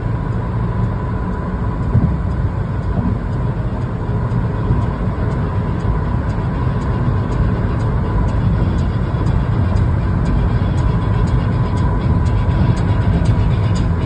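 Steady road and engine rumble inside a car's cabin at highway speed, with a faint steady whine. Faint, evenly spaced high ticks come in over the second half.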